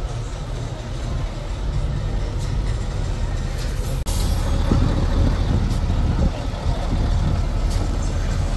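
Heavy diesel engine of an 8x8 Mercedes-Benz trial truck running at low speed under load, a steady deep rumble, with a few sharp cracks scattered through it.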